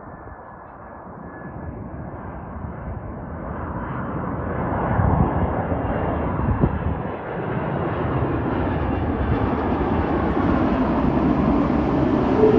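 Airliner's engines growing steadily louder as the plane approaches, the rush of noise gaining higher tones as it nears.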